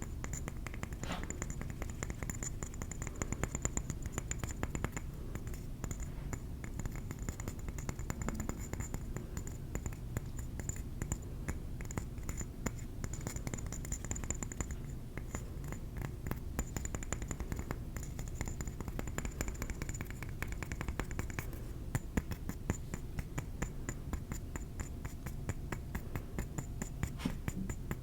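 Rapid, continuous light tapping on a ceramic trinket plate, many small taps a second.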